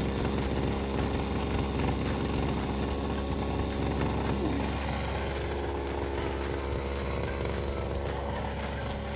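Petrol brush cutter's small engine idling at a steady speed.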